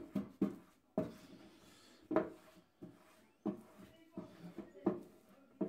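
Hands and a flat applicator pressing and rubbing vinyl lettering onto a metal toolbox: a run of about eight short knocks and rubs against the box.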